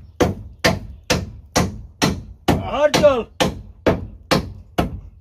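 Hammer blows landing at an even pace, a little over two a second, with a man's short shout about three seconds in.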